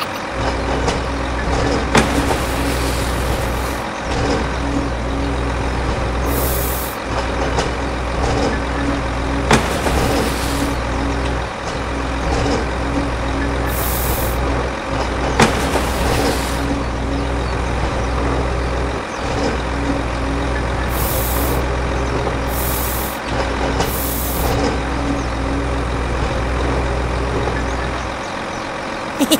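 A miniature vehicle's motor running with a steady low hum that cuts out briefly every few seconds. Short high hisses come and go about eight times.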